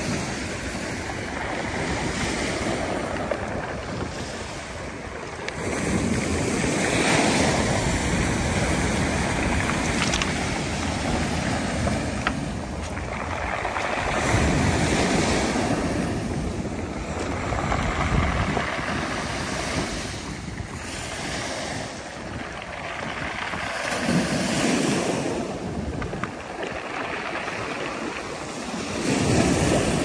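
Black Sea waves breaking and washing up a pebble beach, the surf swelling and easing every few seconds.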